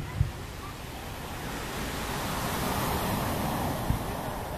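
Distant fireworks: a dull thump of a shell being launched at the start, then a single smaller burst thump about four seconds in. Between them a wash of surf swells up and eases off.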